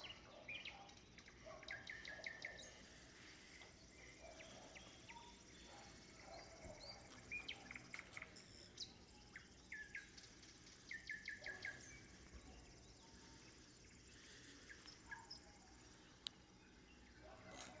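Faint nightingale song: short runs of rapidly repeated high notes every few seconds, over quiet rural dawn ambience.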